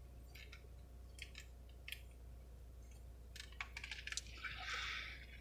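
Faint clicking and clinking of ice in a fast-food soft-drink cup of Dr Pepper as it is picked up and drunk from, with a cluster of sharper clicks past the midpoint and a brief hissing sip near the end.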